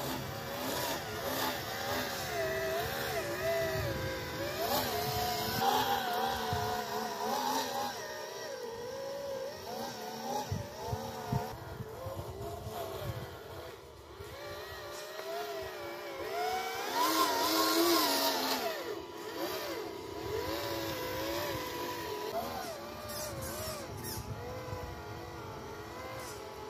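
A 1/10-scale RC truck's motor whines as it churns through mud, its pitch rising and falling with the throttle. The whine is loudest about two-thirds of the way through.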